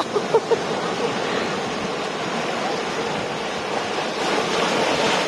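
Ocean surf washing onto the shore, a steady rush of waves.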